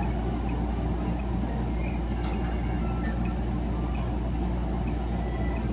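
A steady low hum under a constant background rush, with a few faint short high tones now and then.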